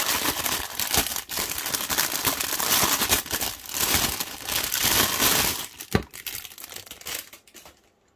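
Clear plastic wrapping crinkling loudly and continuously as it is pulled off a drink can. Near the end there is a single knock, and the crinkling fades out.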